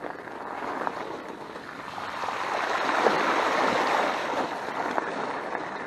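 Fat bike's wide tyres ploughing through a large puddle, water splashing and rushing around the wheels, building to its loudest about three seconds in and then easing off.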